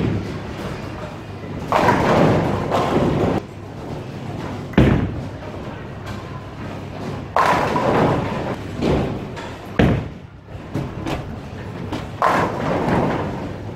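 Bowling alley sounds: bowling balls landing on the lanes with sharp thuds and rolling, and pins crashing and clattering three times, each crash lasting a second or so. The hall's echo hangs on each crash.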